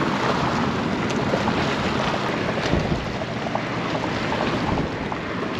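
Steady wind buffeting the microphone, with choppy water splashing against the shoreline rocks.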